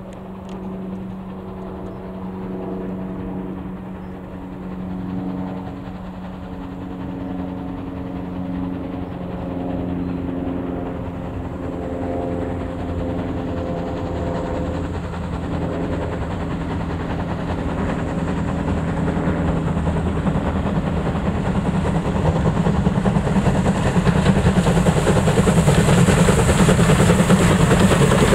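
Pannier tank steam locomotive 1501 approaching with its train of coaches, growing steadily louder through the second half as the train draws close, with the rumble and clatter of the coaches on the rails. A steady low hum runs under it in the first half.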